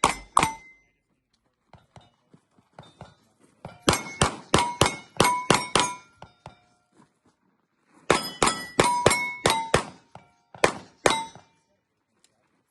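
Rapid pistol shots, each followed by the ring of a struck steel target plate. They come in three strings: a couple right at the start, about eight from about four seconds in, and about nine from about eight seconds in, with quiet gaps between.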